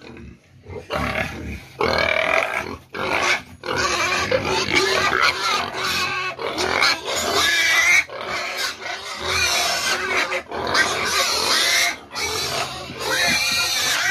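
A pen of hybrid fattening pigs grunting and squealing over one another almost without pause as they crowd the feeding trough, hungry at feeding time. The calls start about a second in.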